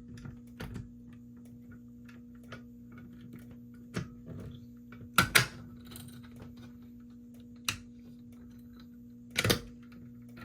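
Clicks and knocks of a Fire-Lite BG-12LX pull station being reset by hand, with a louder double clack about halfway through and another near the end, over a steady low electrical hum.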